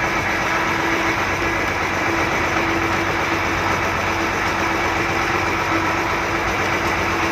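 Fishing boat's engine running steadily, a constant even hum.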